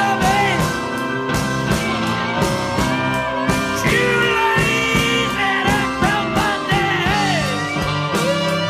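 Rock band playing a slow blues live, with an electric guitar, wavering bent lead lines over bass, organ and drums.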